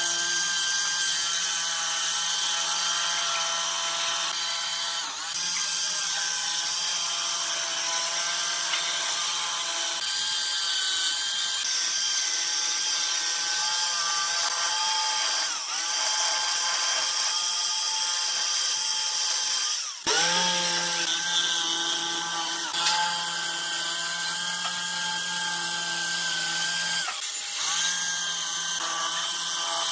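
Makute jigsaw cutting a curve through a wooden board: the motor runs with a steady whine while the blade saws through the wood. The motor briefly drops off and spins back up several times, most sharply about two-thirds of the way through.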